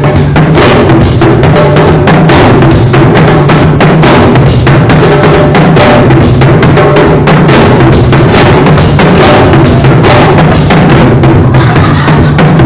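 A group of djembes played by hand together in a dense, driving rhythm, loud and without a break.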